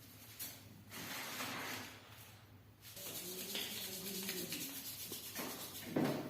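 Hands rubbing and sliding over oiled skin in a massage, in spells of soft rustling, with a dull thump near the end.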